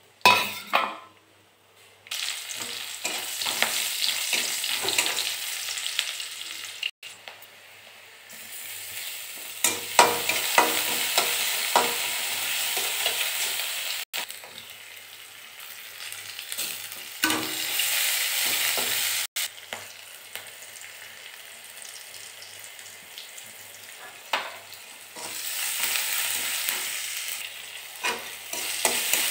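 Spices, sliced onion and then tomato and green chillies frying in hot oil in a steel kadai, sizzling, with a flat metal spatula scraping and stirring against the pan. There is a loud burst of sizzle near the start, and the sizzle then swells and fades in stretches.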